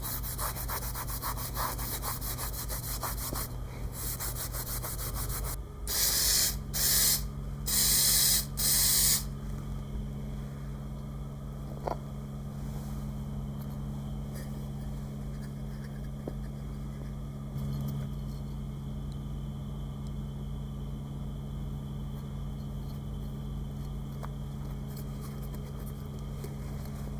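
Rapid hand scuffing of the seat slats with sandpaper, then about four short hisses of spray adhesive being sprayed on so the foam pads can be glued. After that, only a low steady hum.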